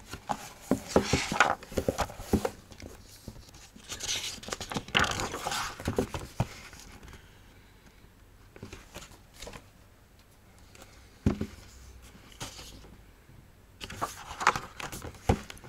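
Pages and cover of a hardcover picture book being handled and turned: paper rustling and crinkling in three bursts, at the start, a few seconds in and near the end, with a few soft knocks between.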